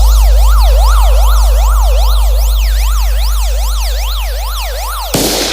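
Synthesized bass-test sound: a loud, steady deep sub-bass drone under a siren-like tone that sweeps up and down about two and a half times a second. Both cut off about five seconds in, followed by a short burst of noise.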